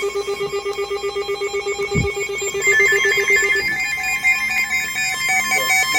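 Emergency alert tones from monitored radio receivers: a low tone pulsing rapidly like a telephone ring, which stops a little past halfway as higher warbling two-pitch tones take over.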